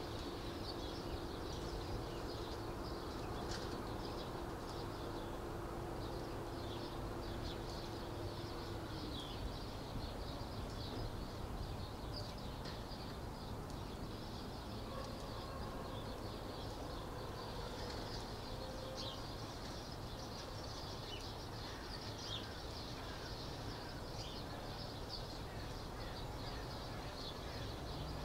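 Small birds chirping again and again over steady outdoor background noise, with a steady hum that stops about nine seconds in.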